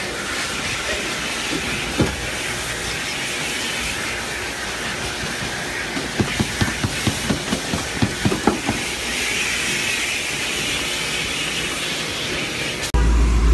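Car wash vacuum hose sucking with a steady hiss as it cleans a car's floor and seats, with a run of quick clicks and knocks about six to nine seconds in. The hiss cuts off suddenly near the end, giving way to a low hum.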